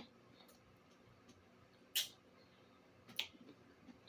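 A few sharp, wet mouth clicks from eating and chewing fried chicken, the loudest about two seconds in, with quiet between them.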